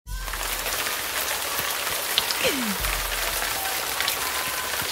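A steady rain-like hiss with scattered faint clicks, a deep low hum that comes and goes about every three seconds, and a short falling tone about halfway through.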